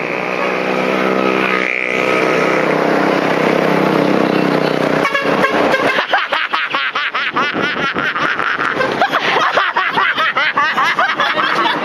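Truck horn sounding: a long steady multi-tone blast, then from about five seconds in a rapid run of short, quickly changing tones.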